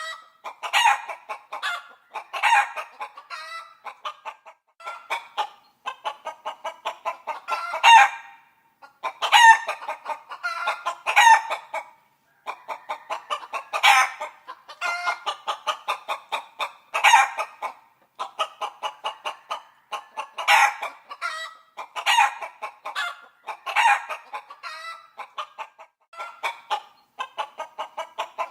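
Chickens clucking continuously, with a louder, sharper call every second or two.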